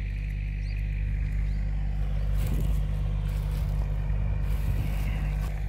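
Farm tractor engine running steadily while it plows up a sweet potato field, a low, even drone.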